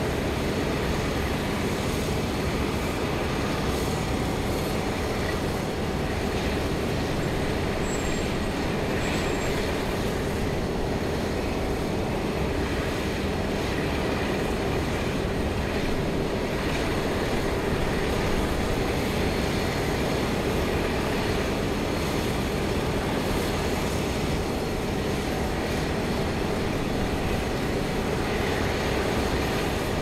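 Steady industrial machinery drone: a continuous dense rumble and hiss with a few faint steady tones in it, holding at an even level without breaks or distinct events.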